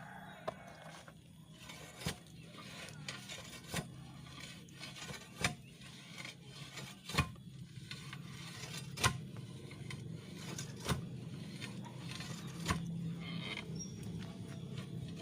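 Manual well drilling: sharp knocks at a steady pace, about one every two seconds, eight in all, over a steady low hum.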